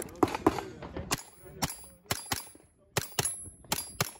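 AR-style semi-automatic rifle firing a rapid string of about ten sharp shots, often as quick pairs, with a short high metallic ring after several of them.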